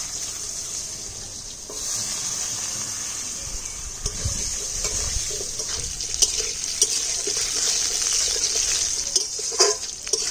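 Potato pieces frying in hot mustard oil in a kadai: a steady sizzle that gets louder about two seconds in, with a few sharp clicks near the end.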